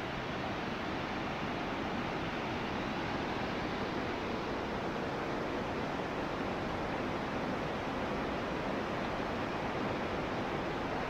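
Steady rushing of a white-water mountain river running over rocks.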